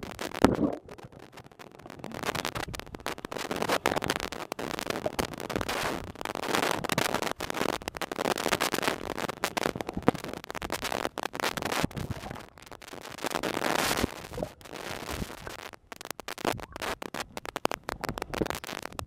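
Camera housing submerged underwater: dense, irregular crackling and clicking over a muffled rush of water, rising and falling in surges.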